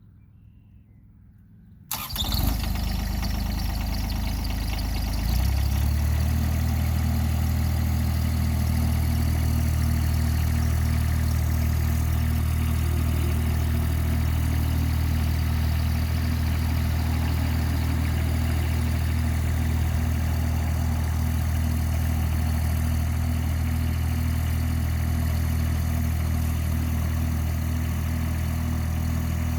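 Ditch Witch mini skid steer engine starting about two seconds in, then running steadily at idle. Its sound settles into an even, unchanging note about five seconds in.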